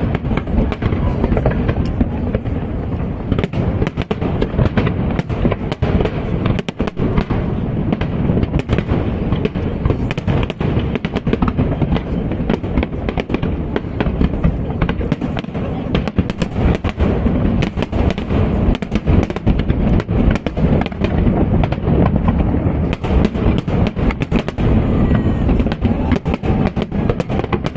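Aerial fireworks exploding in a dense, unbroken barrage, many bangs and crackles overlapping: a finale volley.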